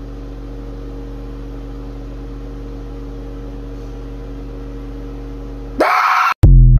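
A steady low hum, then a sudden very loud shout from a young man about six seconds in.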